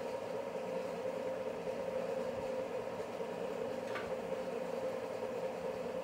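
Steady mechanical hum with one faint click about four seconds in.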